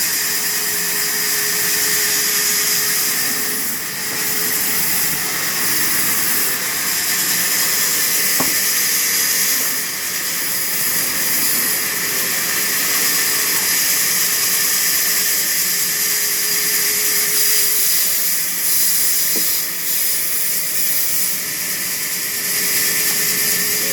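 Sawmill saw running steadily, a loud, even hiss with a faint steady tone beneath it.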